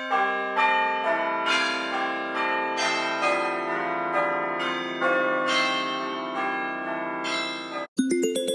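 An iPhone alarm tone: a bell-like chime melody of overlapping, ringing notes, a new one about every half second, cutting off suddenly near the end.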